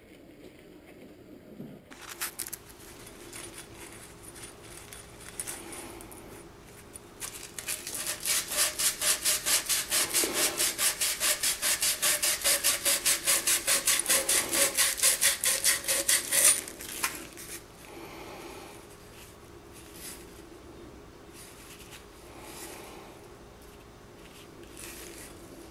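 Rapid, even back-and-forth scraping on copper pipe, several strokes a second, loudest from about seven seconds in until it stops at about sixteen seconds. Lighter, irregular scraping comes before it.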